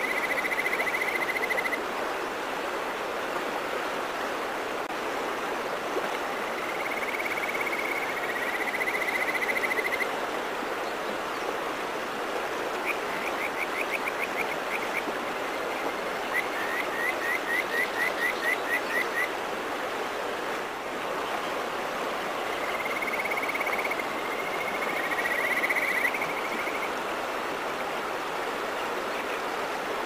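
Male kajika frog (Buergeria buergeri) calling in several whistling, bird-like phrases. Some phrases are drawn-out trilled notes and others are quick runs of short rising notes, about four a second. They sound over the steady rushing of a mountain stream.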